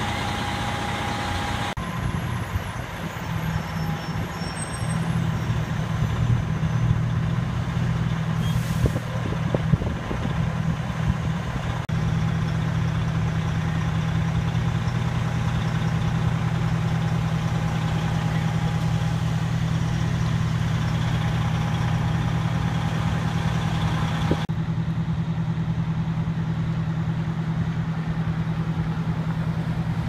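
Heavy diesel engines of parked fire engines idling with a steady low hum. The sound shifts abruptly about two seconds in and again near the end.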